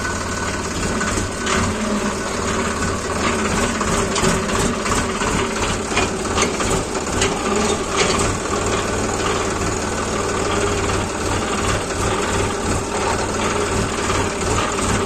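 Diesel engine of a Sonalika Sikandar DI 39 tractor running steadily as the tractor drives slowly over a field, with scattered short knocks and rattles around the middle.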